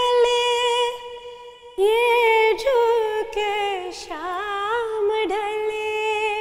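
A woman singing solo without accompaniment: a slow melodic line of long held notes with ornamented turns, breaking off briefly a little after one second.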